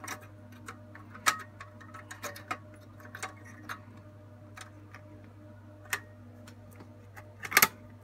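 Scattered small clicks and taps of plastic and metal parts as the hard-drive backplane of a Dell PowerEdge M610 blade server is fitted into place, with a louder quick cluster of clicks near the end as it clips down.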